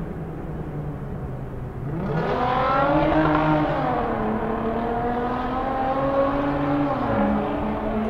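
Motorcycle engine running, then revved about two seconds in: the pitch rises and gets louder, peaks about a second later and eases back, then the engine runs on steadily at a faster pace than at the start.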